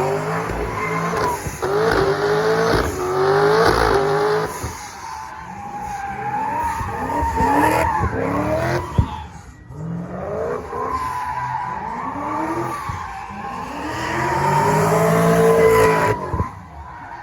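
Car doing a burnout spin-off: the engine revs up and down over and over while the tires squeal steadily. There is a short lull about halfway through, then a long climbing rev that cuts off just before the end.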